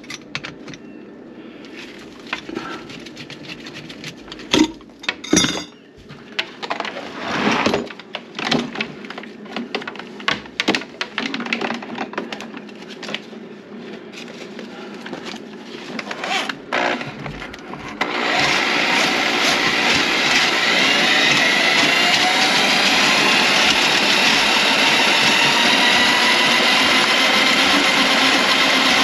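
Knocks and clatter of things being handled under a kitchen sink. About 18 seconds in, an electric power tool's motor starts and runs steadily, its whine wavering slightly.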